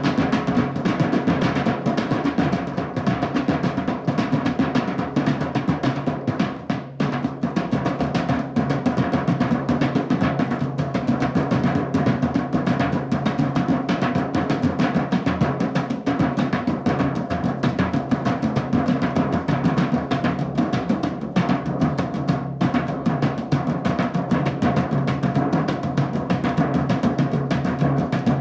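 Drumming music: a fast, dense, unbroken run of drum strokes at an even level, with a brief slackening about six seconds in.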